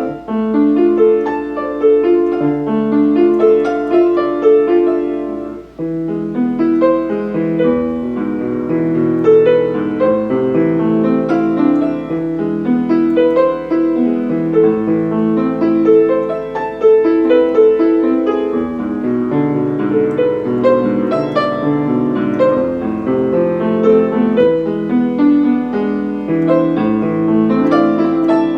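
Piano with a Steinway sound playing a continuous piece of many notes, with a brief break about six seconds in.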